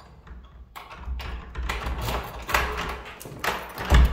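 A series of irregular thumps and knocks, the loudest near the end.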